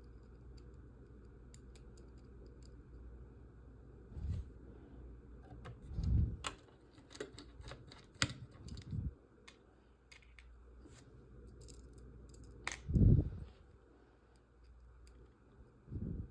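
Parts of a die-cast model kit being handled on a work surface: scattered light clicks of small pieces and screws, and a few soft knocks as the frame pieces are set down or shifted.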